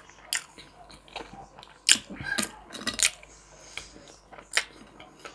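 A person chewing pan-fried chicken thigh with crisp, fried skin: irregular wet mouth clicks and smacks, with about half a dozen sharper ones.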